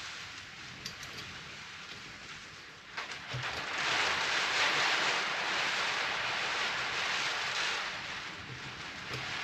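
Rain hissing steadily on the roof. It swells louder for about four seconds in the middle, and there is a single light knock about three seconds in.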